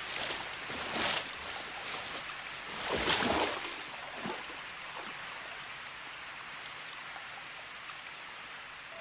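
Heavy rain falling steadily onto standing water, a continuous hiss. It swells briefly about a second in and more strongly around three seconds in, then settles even.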